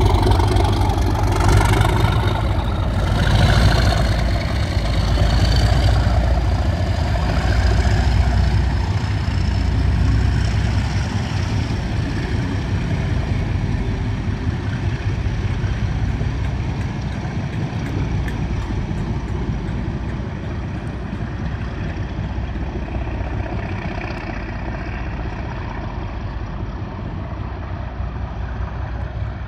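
Class 37 diesel locomotive's English Electric V12 engine working under power as it pulls its train away, with a high whistle rising in pitch over the first few seconds as the turbocharger spools up. The rumble then fades slowly as the coaches roll past and the train draws away.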